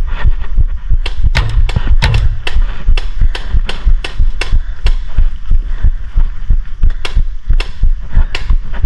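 Paintball marker firing repeatedly, each shot a sharp pop with a low thump, about two shots a second.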